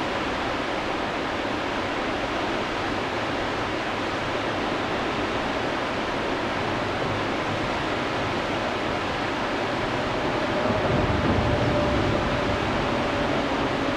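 Whitewater of a river rapid rushing steadily, with a low rumble swelling for a couple of seconds about ten seconds in.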